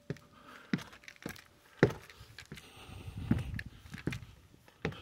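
Footsteps climbing weathered wooden stairs: a steady series of thuds on the wooden treads, about one every half to three-quarters of a second.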